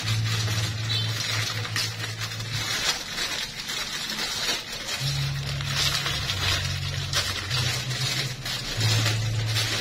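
Plastic packaging crinkling and rustling in the hands as a wrapped snack packet is handled and pulled open, over background music with a low bass line.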